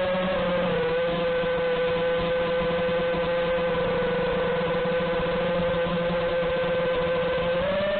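Brushless Booster 2207 motors and propellers of a Martian II FPV quadcopter in flight, heard through its onboard camera's microphone: a steady whine that dips slightly just under a second in and starts to climb in pitch near the end as the throttle comes up.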